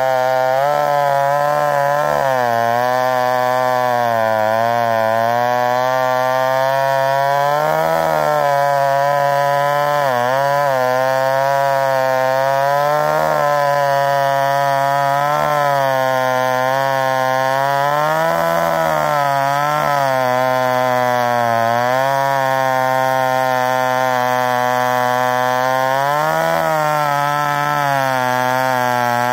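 McCulloch Super 55 two-stroke chainsaw, bored to 83 cc and ported, running at full throttle and cutting through a log with a 32-inch bar and .404 full-skip chain. Its engine note sags under load and picks up again every few seconds, with deeper dips several times as the chain bites harder.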